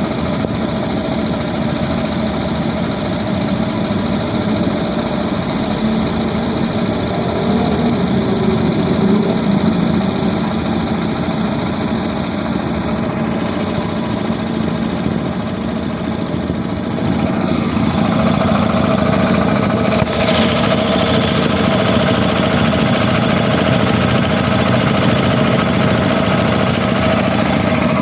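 3 HP Puma 3065 reciprocating air compressor pump running steadily under test, pumping up its 200-litre tank. About two-thirds of the way through the sound gets slightly louder and brighter, then stays steady.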